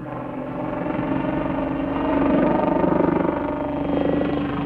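Westland Lynx helicopter flying past overhead: a steady hum of its rotor and twin turboshaft engines, with several held tones, growing louder about two seconds in.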